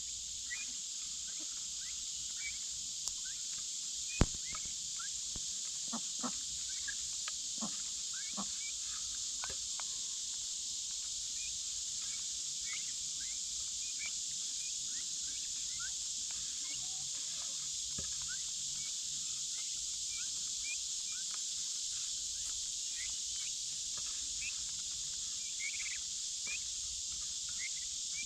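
A steady, high-pitched insect chorus with many short chirps scattered through it, and a few sharp clicks, the loudest about four seconds in.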